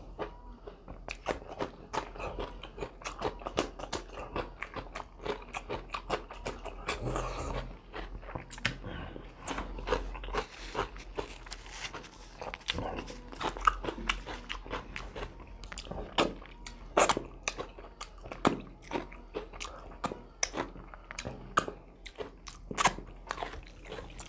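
Close-up eating sounds: a man chewing and crunching mouthfuls of rice, curry and fresh cucumber, with a dense run of small, sharp crunches and wet mouth clicks.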